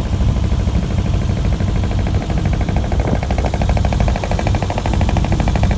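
Inboard engine of a Polar 22 HT motorboat running under way, a rapid even pulse of engine beats over a heavy low rumble, the pulse growing clearer about halfway through.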